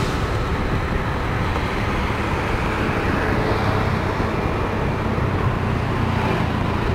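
Engine and road noise of a moving vehicle, heard from on board: steady and mostly low-pitched, with a hiss above it.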